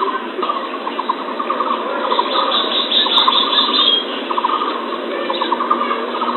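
Small birds calling in rapid, chattering trills, in repeated bursts of quick notes over a steady background hiss.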